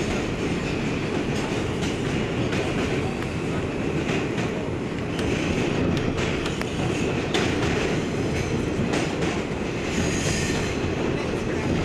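R142 subway car running at speed, heard from inside the car: a steady low rumble of wheels on the rails with scattered sharp clicks as the wheels pass rail joints.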